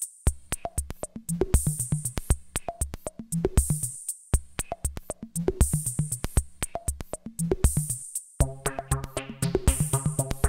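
Electronic music: a fast drum-machine beat over a bass line, breaking off briefly about every four seconds, with sustained synth chords coming in near the end.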